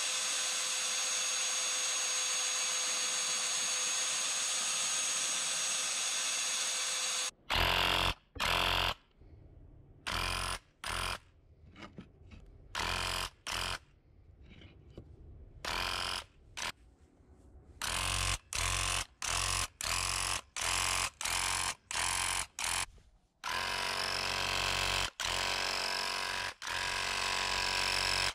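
Electric drill spinning a paddle mixer in a gallon can of paint, a steady whir that stops about seven seconds in. Then a handheld electric paint sprayer buzzing in bursts as the trigger is pulled and released: short quick bursts at first, longer ones near the end.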